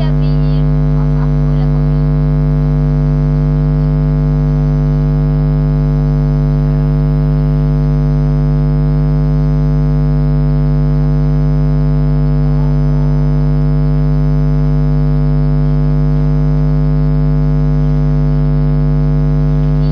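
Loud, steady electrical hum with a buzzing edge, several steady tones layered together and not changing at all; a faint voice is barely heard under it near the start.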